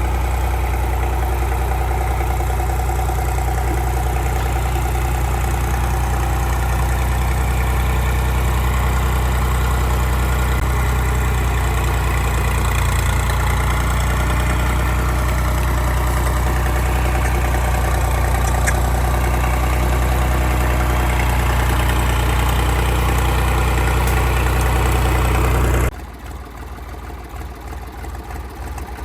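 An engine running steadily, with a low, even hum and a slowly shifting higher tone. The sound drops off abruptly near the end, leaving quieter, uneven noise.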